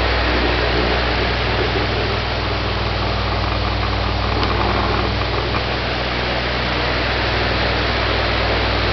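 Electric fans running close by: a steady rush of blown air over a low, even motor hum.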